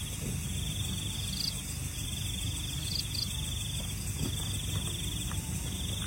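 Insects trilling in repeated bouts of about a second or so, each a fast pulsing buzz, with a few short higher chirps between them, over a steady low rumble.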